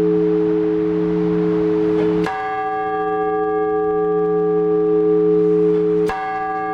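Orthodox church bell struck twice, about four seconds apart, each stroke ringing on in a long, steady hum that carries under the next.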